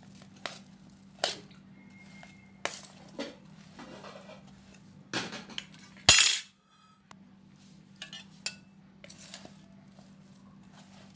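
Steel spoon scraping and clinking against a steel plate as sliced radish is tossed with ground spices, in irregular strokes, the loudest scrape about six seconds in.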